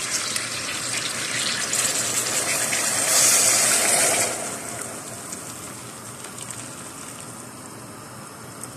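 Hot water poured into a pressure cooker onto browned beef: a gushing pour, loudest about three to four seconds in, that stops and leaves a quieter steady hiss from the hot pot.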